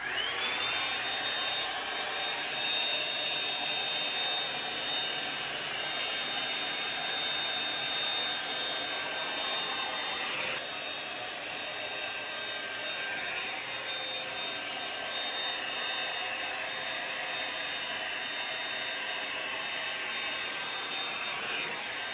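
Revlon One-Step volumizing hot-air brush switching on and running steadily: a rush of blown air with a high whine, dipping slightly about ten seconds in.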